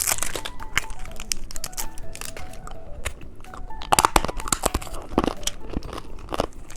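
Plastic candy packaging being handled and opened: crinkling and tearing with many sharp clicks and snaps, busiest around the middle, over faint background music.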